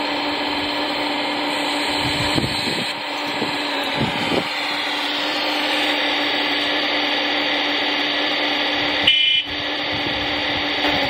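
R/C model Volvo EC480DL excavator's motors whirring steadily with a constant hum as it swings its boom and moves its bucket, with a few light clicks and a brief break about nine seconds in.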